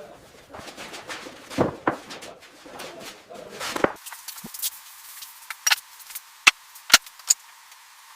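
Scattered sharp knocks and clicks at an irregular pace. About four seconds in, the sound turns thin and tinny with no low end, and four louder, sharper clicks follow.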